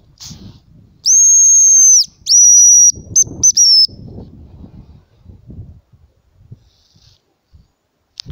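Homemade hazel grouse call blown to imitate the bird's whistled song: two long, thin, high whistles followed by a quick run of short broken notes that fall slightly in pitch.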